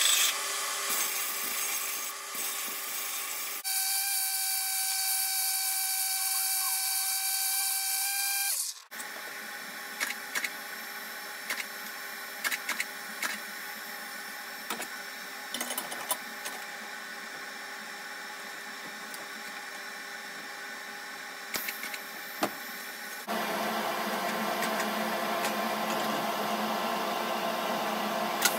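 Belt sander grinding the end of a stainless steel tube bend for about three seconds, then a steady machine whine for about five seconds. After that comes a quieter stretch of TIG tack welding on stainless tubes, with scattered clicks and taps, and louder steady workshop machine noise near the end.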